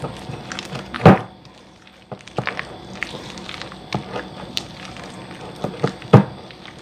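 Spatula stirring a thick, creamy cheese mixture in a glass bowl: wet scraping with irregular clicks and knocks against the bowl. Two much louder knocks come about a second in and near the end.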